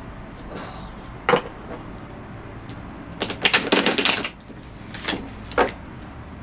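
A deck of tarot cards being shuffled by hand. There is a single sharp tap about a second in, a rapid flurry of card clicks lasting about a second from three seconds in, then two more taps near the end.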